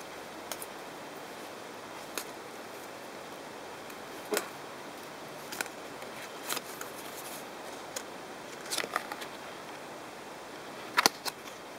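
A cardboard hang tag and a paper leaflet being handled: scattered short crackles and clicks, with the loudest cluster near the end, over a steady hiss.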